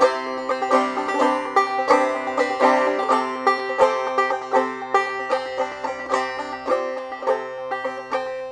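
Clawhammer banjo playing an old-time tune: a steady stream of plucked notes, several a second, with a ringing drone string.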